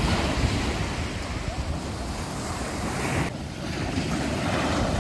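Black Sea surf breaking and washing up a sandy beach, with wind rumbling on the microphone.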